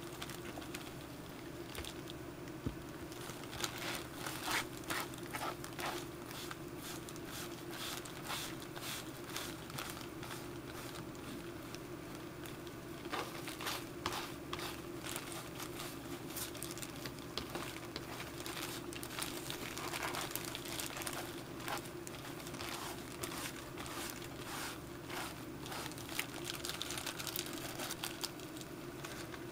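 A plastic bag worn over a hand crinkles and rustles in irregular bursts as a sponge wipes dye onto a leather blank. A steady low hum runs underneath.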